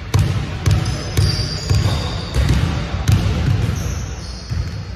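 Basketball dribbled on a hardwood gym floor, bouncing about twice a second, with sneakers squeaking on the court now and then.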